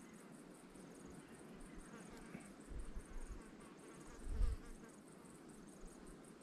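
Faint insects chirping outdoors, short high chirps repeating evenly a little under once a second over a quiet background. A couple of soft low bumps come about three and four and a half seconds in.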